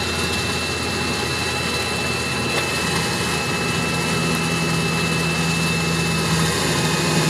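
Engine of an off-road side-by-side buggy idling steadily, with a thin steady high whine over the low hum, heard from the driver's seat.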